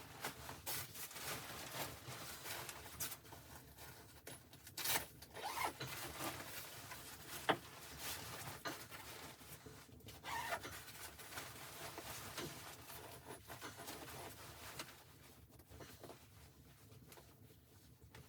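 Irregular rustling and rubbing noises with scattered small clicks and knocks, as of gear or clothing being handled in a small space.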